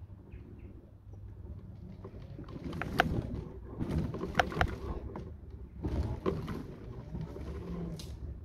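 Mobility scooter driving over rough ground: a low steady rumble of the motor and tyres, with bursts of rattling and clicks about three, four, six and eight seconds in, the sharpest at about three seconds.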